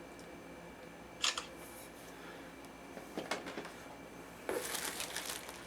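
Unboxing handling sounds: a sharp click about a second in, a few light knocks, then crisp rustling and crackling of packing material near the end.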